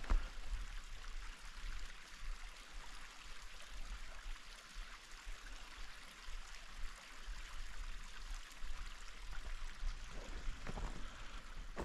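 A steady, soft rushing hiss with no footsteps for most of the stretch. Boots start crunching in snow again near the end.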